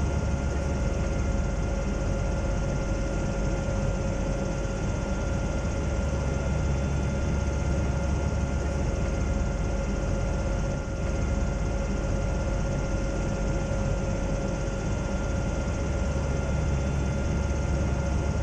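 Zeppelin NT airship's piston engines and propellers running steadily in flight, heard inside the passenger gondola: an even engine noise with a constant whining tone.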